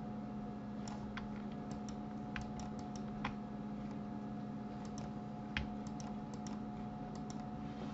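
Irregular clicking of a computer keyboard and mouse, a few clicks a second with short pauses between them, over a steady low electrical hum.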